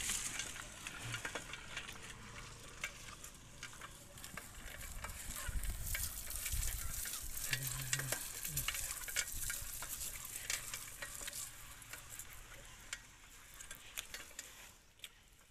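Bicycle tyres rolling over a rough dirt and gravel road: a steady crackle of grit with many small clicks and rattles, and a low rumble around the middle.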